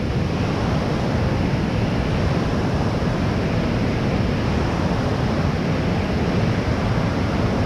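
Steady rush of fast-flowing water where a strong current runs into the lake, with wind rumbling on the microphone.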